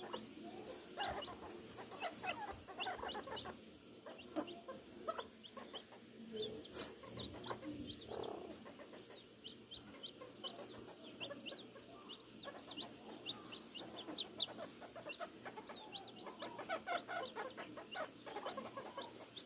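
Bantam chickens clucking in short, repeated notes while dust-bathing, with many high, short chirps running through.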